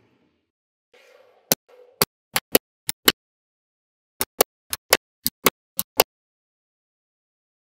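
Small magnetic balls snapping together with sharp clicks, often in quick pairs: six clicks, a short pause, then eight more.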